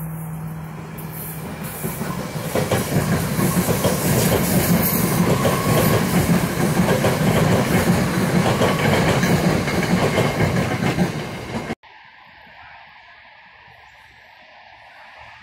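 SEPTA Silverliner IV electric multiple-unit commuter train approaching with a steady motor hum, then passing close by with a loud rush of wheels on the rails. The sound cuts off abruptly about three-quarters of the way through, leaving only faint outdoor background.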